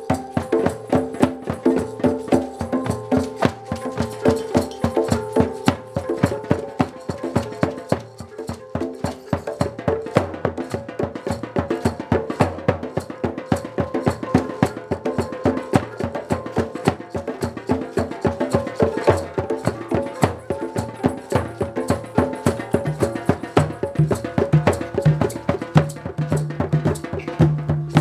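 Live percussion music: a fast, even pattern of struck notes with pitched tones ringing over them. A low held note comes in near the end.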